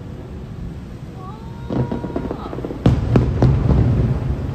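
Aerial firework shells bursting: a few pops from about two seconds in, then a quick run of loud booms about three seconds in, with low rumble between them.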